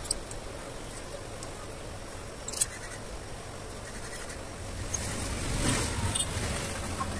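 A smartphone's frame being handled on a silicone repair mat: one sharp click about two and a half seconds in and a scraping rustle near the end, over a steady low background rumble.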